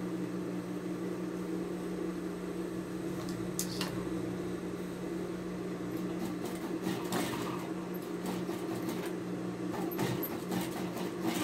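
Electric domestic sewing machine running at a steady speed, an even low hum, with a few light clicks along the way.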